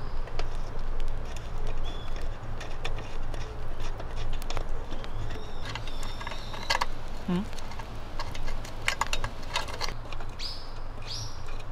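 Light metal clicks and taps as the cap and knob on a small copper hurricane lantern's base are handled, with a few short bird chirps.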